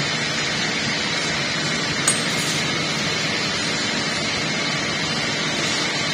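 Steady whirring running noise of a workshop machine, with a single light metallic clink about two seconds in.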